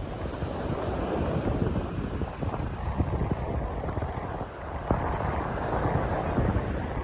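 Ocean surf washing onto the beach, the wash swelling twice, with wind buffeting the microphone in low rumbling gusts throughout.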